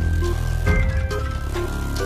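Instrumental cartoon soundtrack music with a heavy bass line, held notes and a regular beat.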